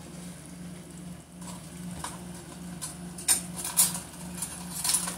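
Thick blended-tomato sauce simmering in a frying pan, popping and spitting in sharp crackles that come louder and more often from about three seconds in. A low pulsing hum runs underneath.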